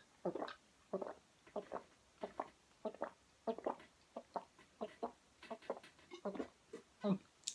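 A person gulping down a glass of drink in steady swallows, about three a second, without a pause.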